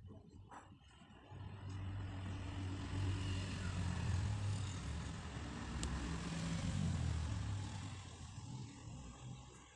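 A motor vehicle passing by, its engine sound swelling up over a couple of seconds, loudest in the middle, then fading away near the end.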